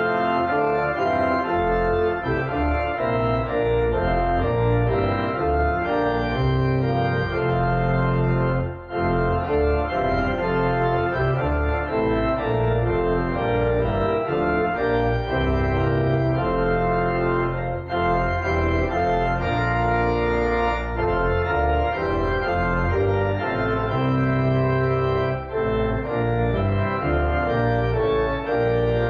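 Church organ playing sustained chords over a deep pedal bass, with a short break about nine seconds in.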